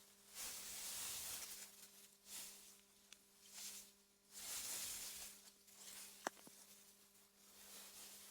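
Soft wind through meadow grass, a quiet hiss that swells and fades in gusts every second or two, over a faint steady hum. A single sharp click sounds about six seconds in.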